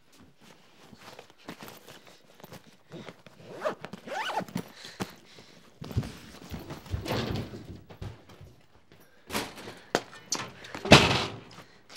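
A cloth bag being handled and packed: rustling, a zipper being pulled, and scattered knocks and footsteps, with a louder thud near the end.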